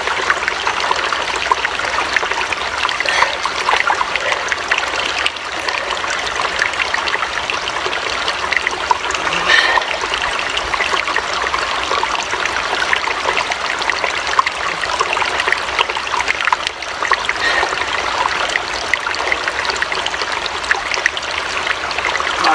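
Small mountain stream running steadily, a continuous trickling and splashing of water over rocks.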